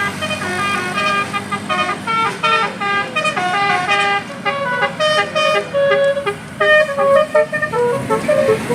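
Telolet Basuri musical bus horn playing a quick tune of short notes that step up and down in pitch.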